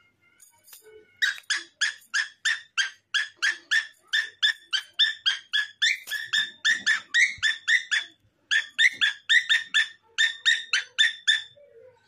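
Pet parrot calling: a long rapid run of short, identical high chirps, about four a second, broken by two brief pauses.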